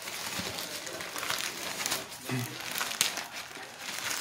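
Thin black plastic mailer bag crinkling and crackling as hands pull it open and handle it.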